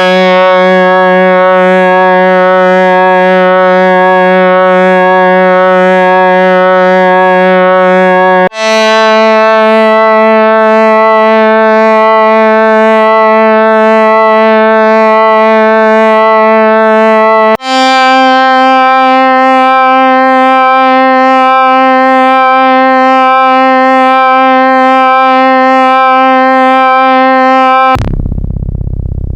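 Korg EX-800 analog synthesizer playing three long held tones, about nine seconds each, each a step higher than the last, with a slight wavering pulse. Near the end a lower rumbling sound takes over.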